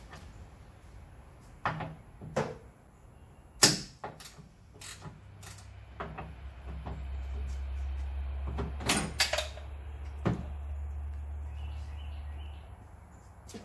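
Scattered clicks and knocks of hand work on a car's open front end and hood, the loudest about three and a half seconds in and a quick cluster around nine seconds. A steady low hum comes in about six seconds in and stops near the end.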